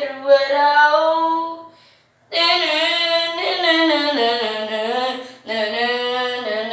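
Wordless singing: long held vocal notes that slide up and down in pitch. There is a brief break about two seconds in.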